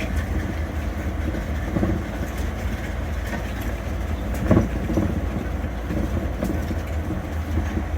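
Steady low rumble of road and engine noise inside a moving vehicle, with a few light knocks and one louder thump about four and a half seconds in.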